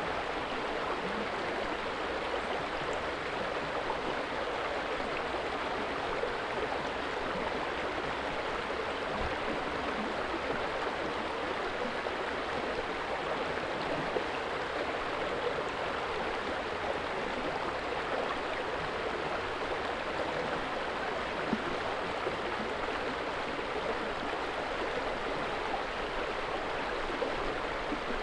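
Steady rushing of river water, an even unbroken wash of flowing water.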